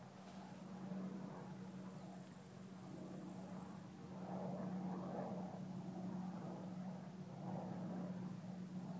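Honeybees buzzing around thistle flowers: a steady low hum, with a rougher buzz that swells and fades every couple of seconds as bees move close to the flowers.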